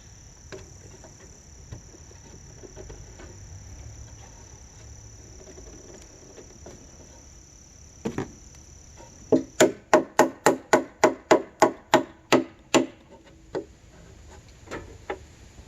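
Rapid tapping on wood: a double knock, then a run of about fourteen sharp knocks at about four a second.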